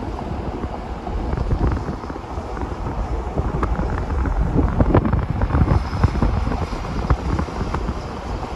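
Wind buffeting the microphone: a loud, uneven low rumble that rises and falls, with a few brief crackles.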